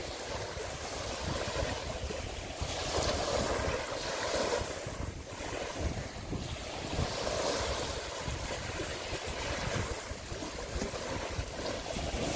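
Wind blowing across the microphone outdoors: a steady rushing hiss with a fluttering low rumble, swelling in gusts a few seconds in and again past the middle.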